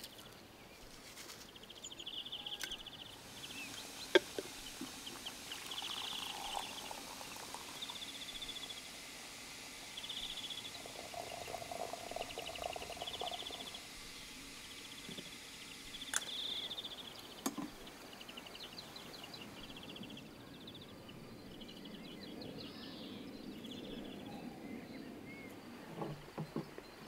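Small birds singing in short high trills again and again, over a few sharp clicks and knocks of glass and wooden tableware being handled, the loudest about four seconds in. Around the middle, hot water runs from a brass samovar's tap into a glass teapot for a couple of seconds.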